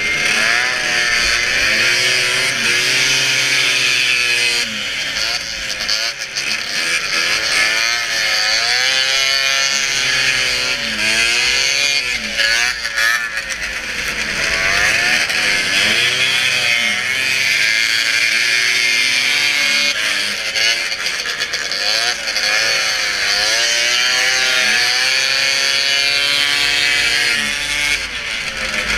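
Race snowmobile engines revving up and down over and over, their pitch climbing and dropping every second or two over a steady high rasp.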